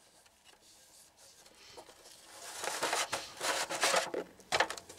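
A metal oil-filter canister being handled and fitted back onto its filter head in an aluminium foil drip pan: scraping, crinkling and small clicks. It is faint at first and grows louder about halfway through.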